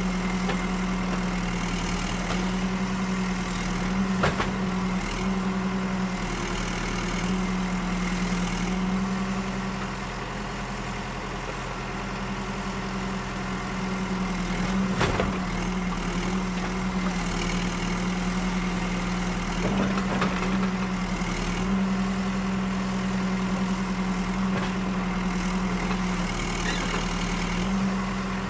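Construction machinery's engine running steadily with a low hum, broken by a few sharp knocks now and then.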